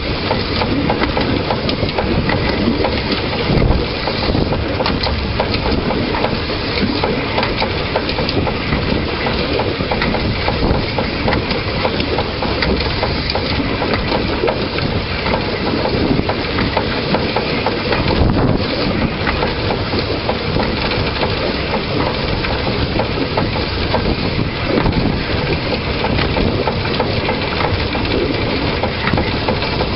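Narrow-gauge train running along the line, heard from the locomotive: a loud, steady rumble and rattle of the moving train.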